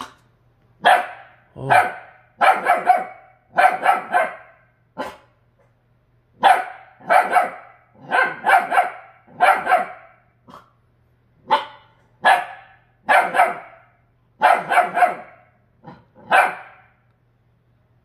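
Young Jindo dog barking repeatedly at its own reflection: short sharp barks, often in pairs or threes, roughly one a second with brief pauses between the groups.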